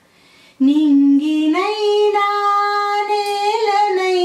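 A woman singing unaccompanied: after a short pause for breath, she comes in on a low note, steps up in pitch twice and holds one long note with a slight waver near the end.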